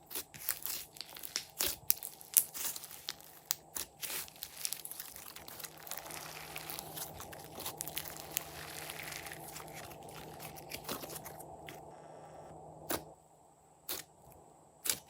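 Glossy slime being squished and stretched by hand: rapid sticky clicks and pops, settling into a softer continuous squelching, then only a few separate clicks near the end.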